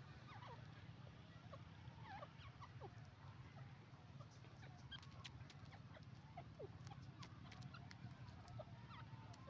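Faint, scattered short bird chirps and clucking notes, many quick sliding notes at irregular intervals, over a low steady hum.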